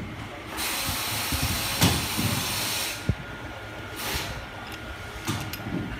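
Compressed air hissing out of a pneumatic tool opened up for valve repair: a steady hiss for about two and a half seconds, then a shorter puff about four seconds in. A few light clicks and knocks of the tool's parts being handled.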